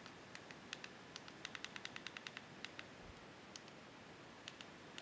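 Faint button clicks, several a second for the first three seconds and then only now and then, from the controls used to pick letters on an on-screen keyboard.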